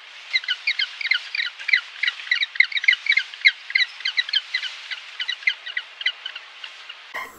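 A flock of birds calling: many short, overlapping calls, several a second, over a steady background of chatter.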